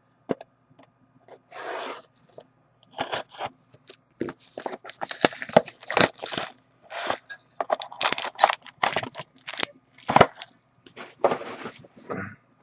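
A sealed trading-card box and its packs being torn open and handled: irregular tearing, crinkling and scraping of cardboard, wrapper and cards.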